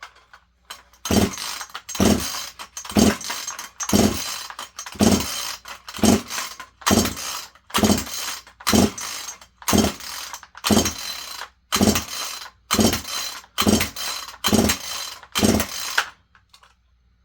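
A chainsaw's recoil starter pulled about sixteen times in a row, roughly once a second, each pull a short rasp of the rope and the engine turning over without firing. This is a compression test with a gauge in the spark-plug hole, which reads 170 psi.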